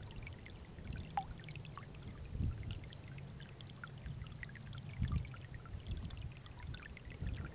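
Shallow water trickling and plinking through grass in a marshy pool, with many small scattered drips, over a low rumble that swells twice.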